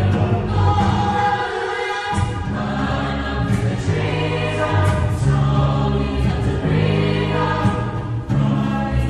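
Choir singing in harmony over a low bass line whose notes change about once a second.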